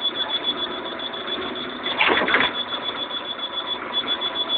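Interior noise of a Karosa Citybus 18M articulated bus under way: engine running with a rhythmic rattling pulse and a steady high-pitched whine, and a brief louder burst about two seconds in.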